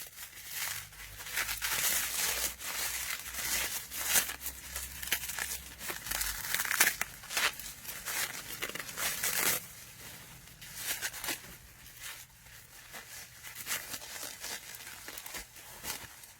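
Bubble wrap being crinkled and torn away from a wrapped item by hand, in a run of crackles and sharp snaps. It is busier for the first ten seconds or so and quieter after that.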